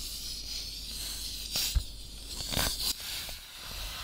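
Air hissing steadily from a puncture in a wheel loader's front tire as a chunk of aluminum lodged in the tread is worked loose with pliers, with a few sharp clicks and scrapes of the pliers about a second and a half and two and a half seconds in.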